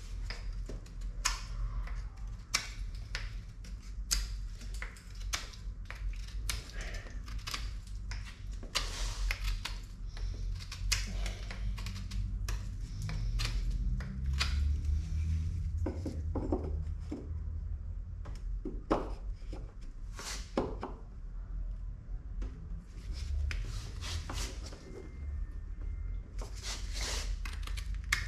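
Hand work on a car door's window mechanism: irregular small clicks, taps and knocks of parts and tools being handled, over a low steady hum.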